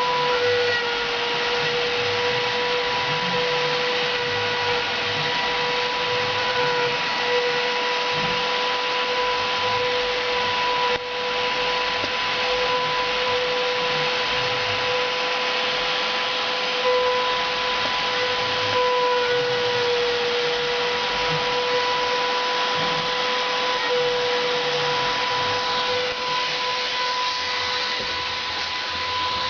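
CNC router spindle running with a steady high whine over a constant hiss of cutting, with a brief dip in level about eleven seconds in.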